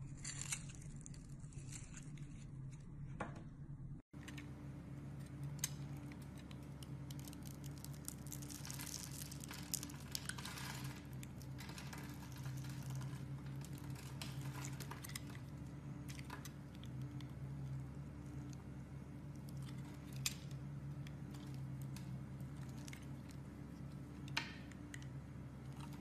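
A knife blade cutting and shaving dry bars of soap, scraping and crumbling through them with scattered sharp little snaps, over a steady low hum. The sound drops out for an instant about four seconds in.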